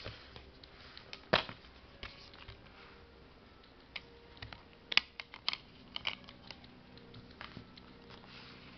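Clicks and taps of a Blu-ray steelbook and its plastic disc tray being handled, with the disc being taken off its snap-in hub. One sharp click comes about a second and a half in, and a quick run of clicks comes around five to six seconds in.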